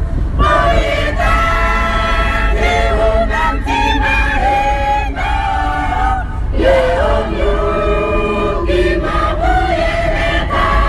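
Several voices singing together, choir-style, over a steady low rumble.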